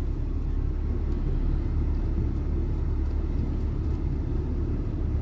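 Ford car on a test drive: a steady low rumble of engine and road noise with no clunks or knocks, after new drive shafts and stabilizer links were fitted.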